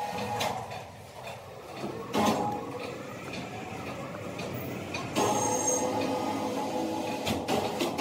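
Sawmill machinery running with a clatter and sharp knocks. The noise jumps up suddenly about two seconds in and again about five seconds in.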